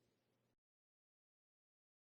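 Near silence: a faint trace of room tone in the first half second, then dead digital silence.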